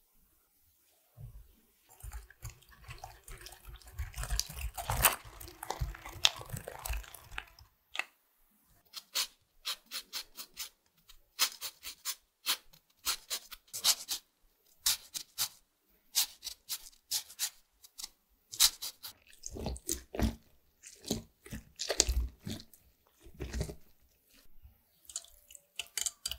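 A lemon being zested on a stainless rasp grater over a glass bowl: a long run of short, sharp scraping strokes, about two a second. Before it come a few seconds of dense scraping and tapping in the bowl, and after it several duller knocks.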